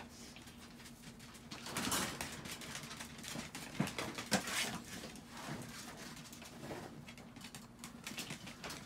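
A Chihuahua pawing and nosing at a pet sheet and cardboard in a plastic toilet tray: scattered scraping and rustling, loudest about two seconds in and again around four seconds in. A faint steady hum runs underneath.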